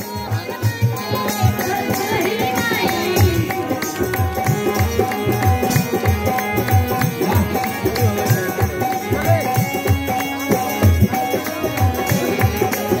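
Indian folk song performed live: a woman singing into a microphone over a steady hand-drum beat and a long held instrumental note.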